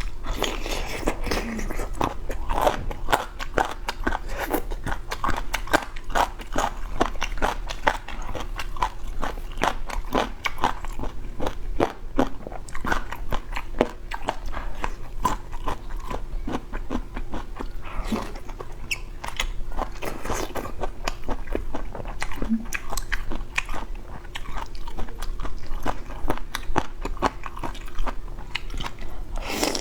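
Close-miked chewing and biting of boneless chicken feet, a steady run of crunches and wet clicks with no pause.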